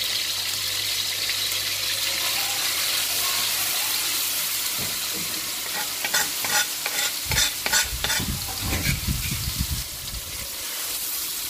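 Ground chili and garlic spice paste sizzling in hot oil in a wok. From about six seconds in, a spatula clicks, scrapes and knocks against the wok as the paste is stirred.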